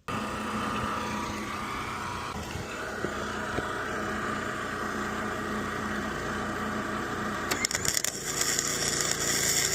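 An engine running steadily at a constant speed. About seven and a half seconds in, the crackling hiss of an arc welder starts up over it as a bracket is welded on.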